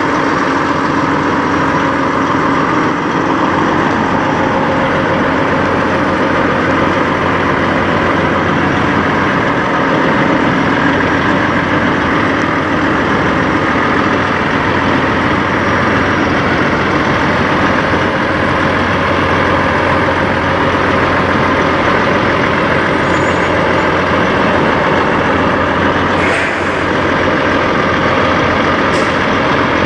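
Peterbilt 389 semi truck's diesel engine idling steadily.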